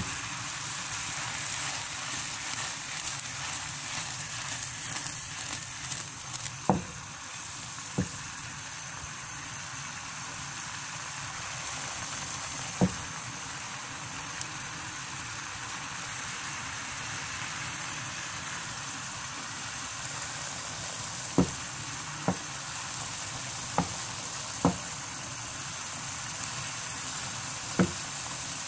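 Potato curry sizzling and bubbling in a pan on a gas burner: a steady hiss, broken by eight or so sharp pops.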